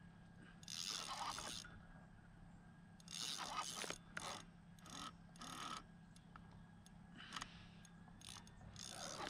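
Spinning reel being cranked in several short spurts, its gears giving a faint scraping whir each time, the longest spurt lasting about a second.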